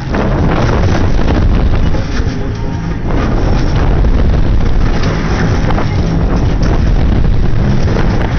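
Heavy wind buffeting the microphone of a camera riding a fast-spinning fairground thrill ride, a loud, steady rushing rumble that eases briefly near the start and again about two seconds in.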